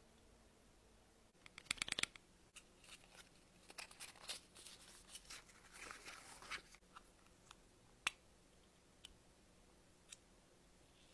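Hands handling and opening small cardboard makeup boxes: a quick run of taps about two seconds in, then several seconds of cardboard scraping and rustling, followed by a few single clicks from the plastic cushion compact being handled and opened.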